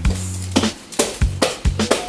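Background music: a drum beat with a hit about every half second over a steady bass line.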